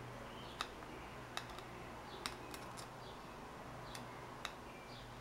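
Hand soldering on a circuit board: a few faint, sharp clicks and ticks as a solder joint is reworked, over a low steady hum.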